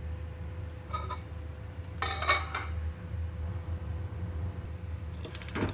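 Metal cookware clinking over a steady low hum: a small clink about a second in, a louder ringing clatter about two seconds in, and a sharp knock near the end.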